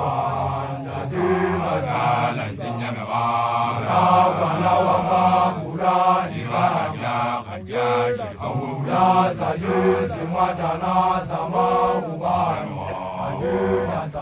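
A group of men chanting together, repeating a short phrase about every two seconds, each phrase ending on a held note.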